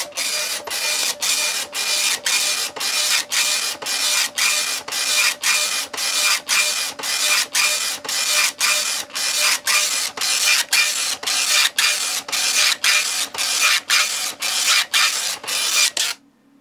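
Oki Microline 280 9-pin dot-matrix printer, cover off, running its continuous character-set self-test. The impact print head rasps across the page line after line, about two and a half lines a second with a brief pause between lines, and stops abruptly near the end.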